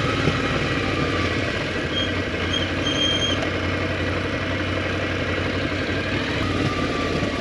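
Motorcycle engine running at a steady, even speed, with a low hum under the noise, cutting in suddenly at the start. A few short high tones sound about two to three seconds in.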